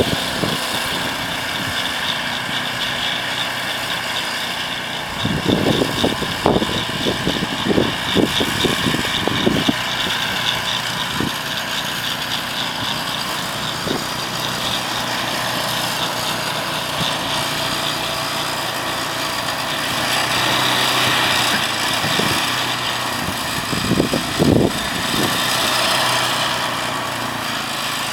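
An engine running steadily, with clusters of low thumps for a few seconds about five seconds in and again briefly near the end.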